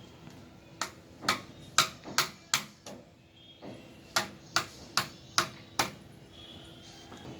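Hard UPVC pipes and fittings knocking together as short pipe legs are fitted into elbow joints. There are two quick runs of sharp clacks: about six, then after a short pause five more.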